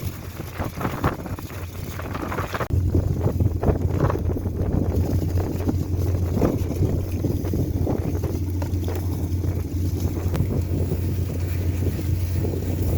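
Wind buffeting the microphone: a steady low rumble that gets louder about three seconds in and stays loud.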